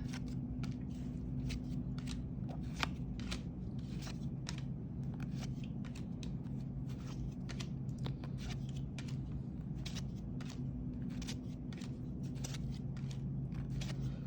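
Trading cards from a basketball card pack being flipped through one at a time, a short snap or flick every half second or so as each card is slid off the stack, over a steady low hum.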